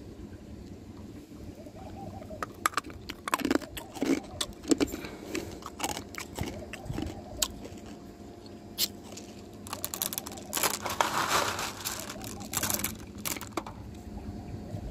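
Small hard sugar candies clicking and rustling as they are handled in the palm and picked from a plastic tray: scattered light clicks with a denser rustle about two-thirds of the way in.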